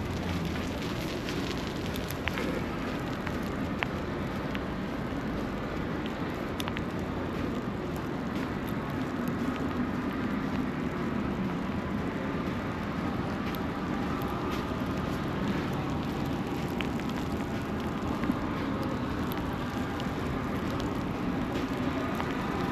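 Steady city street ambience under snowfall: a constant wash of traffic noise with scattered small clicks and crackles.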